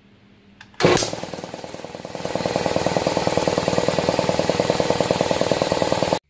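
Ingersoll Rand 24-gallon belt-driven air compressor switched on at its pressure switch and starting up: a loud jolt about a second in, then the electric motor and piston pump running with a fast, even beat that grows louder and then holds steady. It cuts off suddenly near the end.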